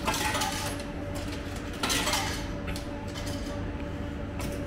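Coins dropping into the coin slot of a retro udon and soba vending machine: two bright metallic clinks about two seconds apart, with a few lighter clicks, over a steady low hum.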